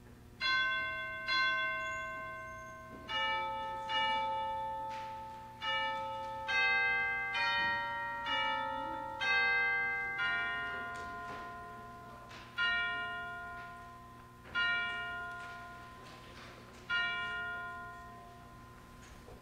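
Church bell chimes struck one note at a time, each ringing and fading: a short melody of about ten notes, then three strokes on the same pitch about two seconds apart, the call to worship before the service begins.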